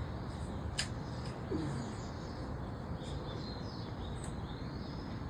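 Faint bird chirps in the background, with a couple of sharp clicks and a brief low falling sound about a second and a half in.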